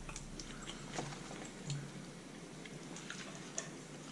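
Faint mouth sounds of someone chewing food, with scattered small wet clicks and ticks.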